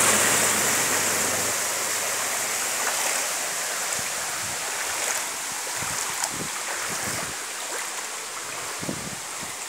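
A motorbike riding through floodwater: its engine hums briefly under the rush of spray thrown up by the wheels, and the splashing fades as it moves away. A few light knocks come in the second half.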